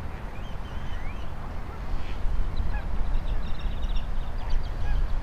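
Birds chirping and calling in short high notes and quick glides, with a rapid run of notes a little past the middle, over a low rumble of wind buffeting the microphone that grows louder about two seconds in.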